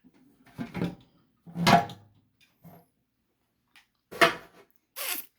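A series of handling knocks and clunks, five in all, with the loudest about a second and a half in and again about four seconds in, and a short scraping hiss near the end.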